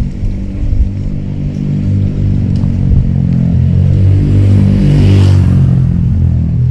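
A motor vehicle's engine running close by, growing to its loudest about five seconds in as it passes, with a rush of tyre and air noise at the peak.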